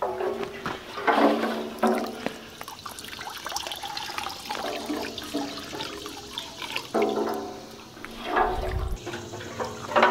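Diesel sloshing inside a metal tractor fuel tank as it is rocked and tipped, and draining out through a hose into a bucket. The diesel is being flushed through to clean rotten-fuel residue out of the tank.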